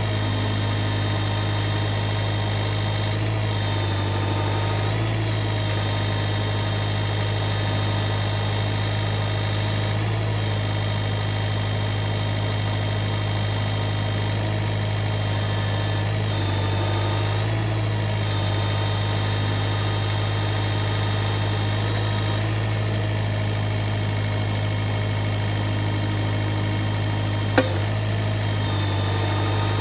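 Kubota MX5400 tractor's diesel engine running steadily at constant speed, with one sharp click near the end.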